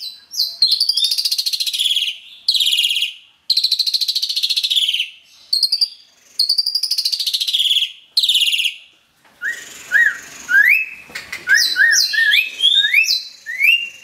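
Caged Asian pied starling singing: loud, harsh, scratchy phrases about a second long, separated by short gaps. From about nine seconds in they give way to a quicker run of short rising whistled notes.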